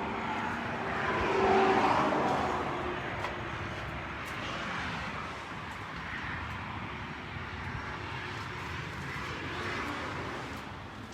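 A passing vehicle: a rumble of engine and road noise that swells to its loudest about two seconds in, then slowly fades away.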